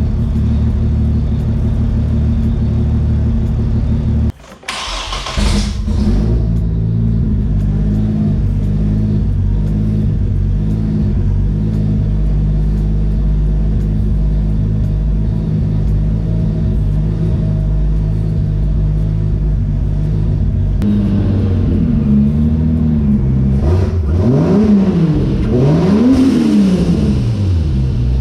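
Turbocharged Trailblazer Vortec 4200 inline-six engine idling loudly through a short, unfinished exhaust while it runs on its first rough tune. About four seconds in the sound drops out briefly and comes back with a short loud burst. Near the end the engine is blipped twice, its pitch rising and falling each time.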